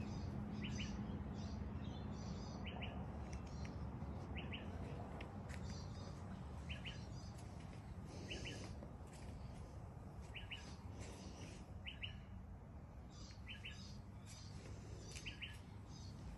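A small bird chirping over and over: short doubled notes every second or two, with fainter higher chirps from other birds, over a low steady background rumble.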